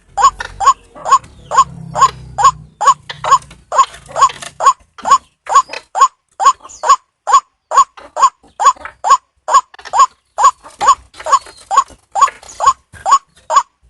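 White-breasted waterhen (ruwak-ruwak) calling: a short, rising-then-falling note repeated steadily about twice a second.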